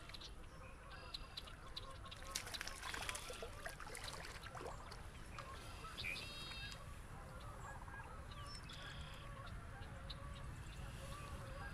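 Geese honking, several short calls a few seconds apart, over steady open-air background noise.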